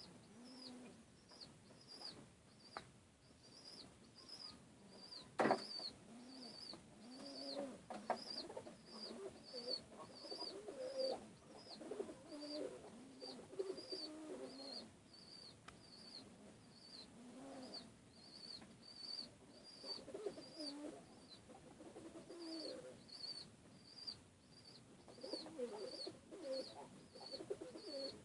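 Domestic pigeons cooing in low, rolling calls over and over, with a short high chirp repeating steadily about one and a half times a second throughout. A single sharp knock about five seconds in is the loudest sound.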